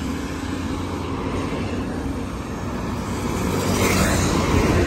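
Road traffic passing on a two-lane road, tyres and engines in a steady rumble; a white minibus drives past close, the noise swelling about three to four seconds in.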